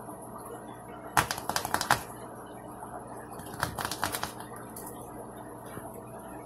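Grey squirrel's claws skittering on a laminate floor in quick runs of clicks, about a second in and again near four seconds, over a steady low hum.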